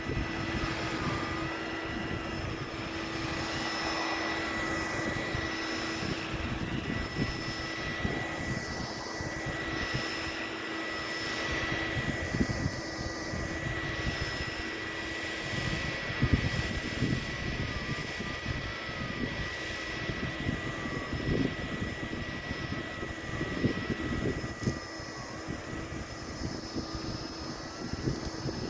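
Electrolux Prolux Plus commercial vacuum cleaner running steadily with a high motor whine, its belt-driven brush working a rug, with irregular low knocks as the machine is pushed back and forth.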